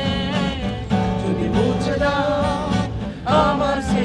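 Acoustic guitar strummed with men's voices singing a song along with it.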